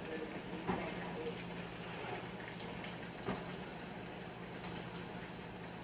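Steady watery swishing with a low hum underneath, and two light knocks about a second and three seconds in.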